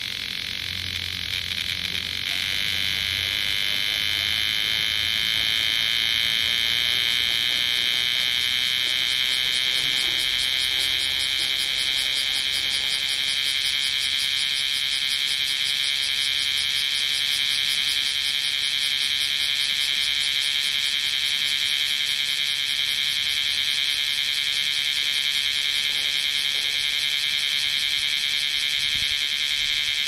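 Male bear cicada (kumazemi, Cryptotympana facialis) calling at close range: a loud, high, rapidly pulsing buzz that swells over the first few seconds and then holds steady.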